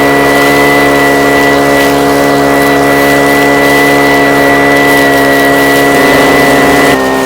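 Gasoline-powered prospecting vacuum running steadily while sucking up material from bedrock cracks, its engine note carrying a high, steady whine. About six seconds in the note wavers, then it settles slightly lower and a little quieter.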